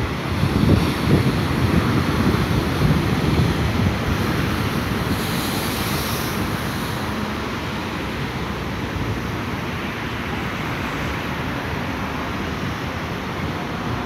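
Ocean surf breaking on a rocky shore, a heavy low rumble with gusts of wind on the microphone, settling after about four seconds into a steadier wash of foam over the rocks. A brief hiss of spray rises about five seconds in and fades two seconds later.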